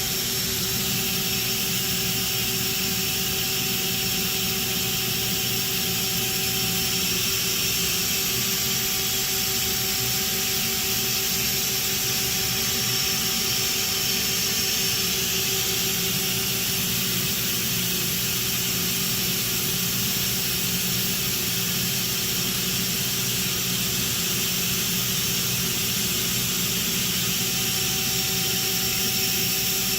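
Mori Seiki NT4300 CNC turning center running under power: a steady mechanical hum with constant whining tones, unchanging throughout.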